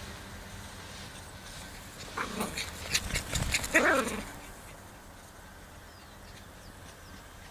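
Two dogs fighting: a burst of scuffling and sharp snaps about two seconds in, ending in one dog's short pitched cry that bends up and down, then quieter.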